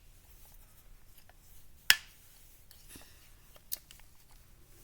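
Handling noises from a metal-slide Glock 19 replica CO2 airsoft pistol: one sharp loud click about two seconds in, a lighter click near four seconds, and faint small clicks and rubbing in between.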